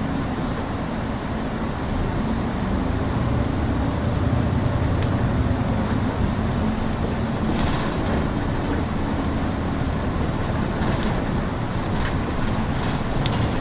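Local city bus running, heard from inside the cabin: a steady low engine and road rumble with a faint hum, and light clicks and rattles from about halfway through.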